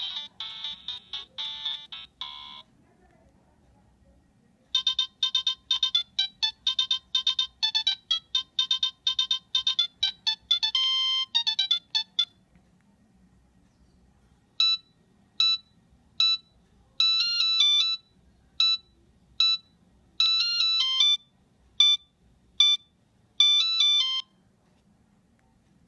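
Nokia 3586 built-in ringtones playing as simple beeping tunes. One tune ends about two seconds in; a fast run of short notes follows from about five to twelve seconds, then after a pause a slower tune of spaced notes and short trills.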